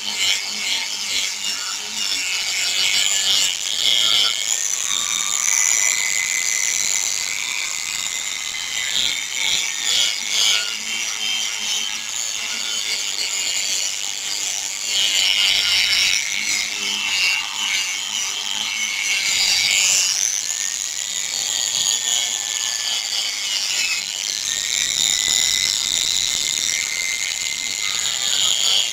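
Small power sander with a foam-backed sanding disc wet-sanding a plastic motorcycle headlight lens: a steady, high-pitched gritty hiss of abrasive on plastic that swells and eases as the pad is pressed and moved. This is the sandpaper step that cuts away the yellowed, scratched surface of the lens.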